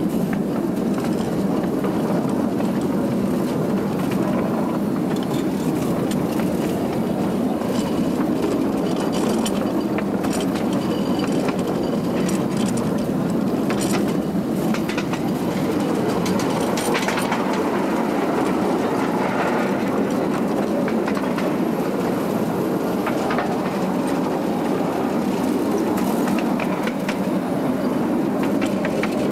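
Home-built wood-fired Shay steam locomotive on 12-inch gauge track, running steadily with a continuous rumble and scattered clicks of its wheels on the rails, heard from aboard.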